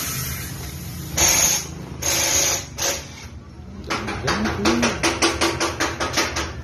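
Compressed air hissing from a tyre changer in two short bursts about a second in. Then comes a quick run of sharp mechanical ticks, about four a second, as the mounted motorcycle wheel is lifted and turned.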